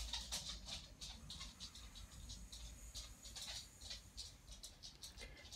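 Quick, irregular series of short soft puffs and spluttering clicks as air is blown through a plastic straw onto wet acrylic paint, pushing the paint open around the straw's tip.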